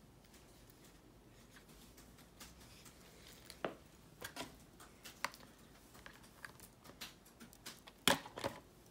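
Faint, scattered clicks and knocks of hands handling a small plastic RC truck, with a short cluster of sharper clicks near the end.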